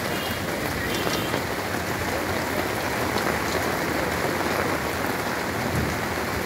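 Steady rain falling on wet pavement, an even hiss with scattered drip ticks.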